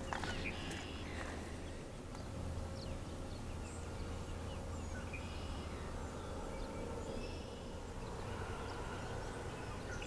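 Faint outdoor ambience: scattered short bird chirps over a low, steady rumble.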